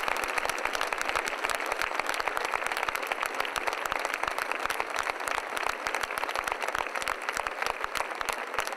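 A crowd applauding: many people clapping at once in a dense, steady patter.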